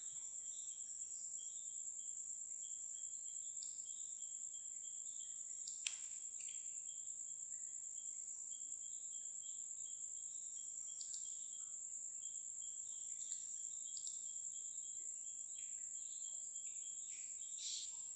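Quiet background: a steady high-pitched whine with faint intermittent chirps, and a soft click about six seconds in.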